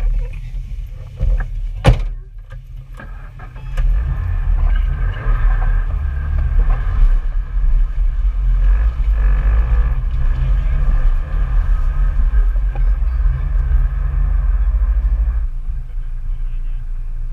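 Off-road vehicle engine working hard under load, with heavy rumble over the microphone. The engine comes up louder about four seconds in and eases off near the end, after a single sharp knock near the start.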